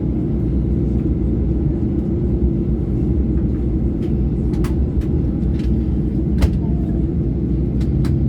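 Steady low rumble inside the cabin of a Boeing 737-800 on the ground before takeoff, its engines running. A few faint sharp clicks come in the second half.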